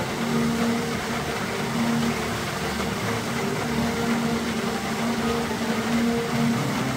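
Steady rush of a large fountain jet, the Merlion's spout, pouring into the bay. Faint held musical notes come and go over it.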